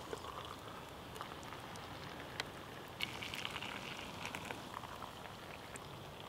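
Hot water poured from a plastic folding cup into camp mugs of instant hot chocolate powder: a faint splashing trickle that picks up about three seconds in, with a few light clicks.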